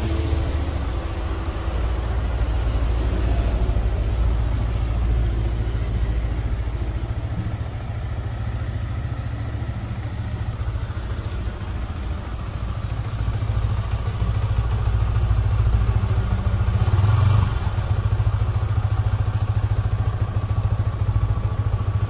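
Yamaha R15 V3's 155 cc single-cylinder engine idling on its stock exhaust after a cold start, a steady low pulsing. About seventeen seconds in, a louder swell of noise rises and fades.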